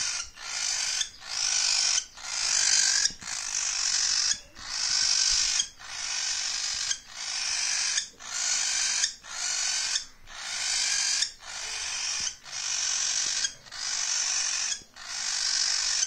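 Cockatiel chick's scratchy begging calls, repeated about once a second with short gaps between them.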